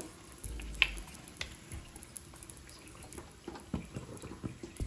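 Onion uttapam frying on a hot flat griddle: oil sizzling under the batter with scattered small pops and crackles, and one sharper pop about a second in.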